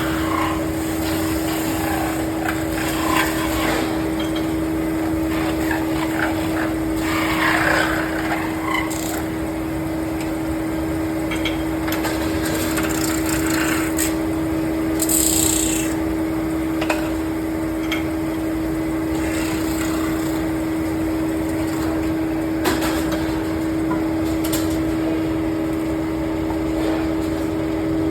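Metal lathe running with a steady hum, while the cutting tool scrapes against the turning workpiece in irregular bursts, with a few sharp clicks.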